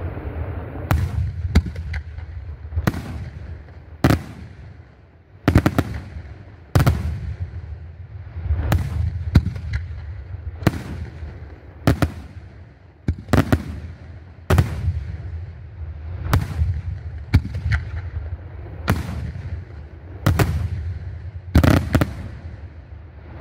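A fireworks display of aerial shells bursting one after another, a sharp bang roughly every second, some coming in quick pairs, each trailing off into a rolling echo over a continuous low rumble.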